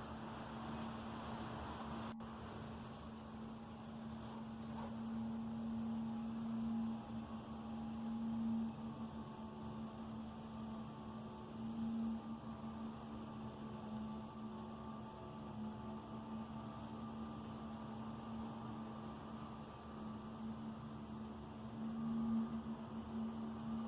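A steady low-pitched humming drone with fainter higher tones above it, swelling louder a few times, of the kind reported as strange sounds from the night sky.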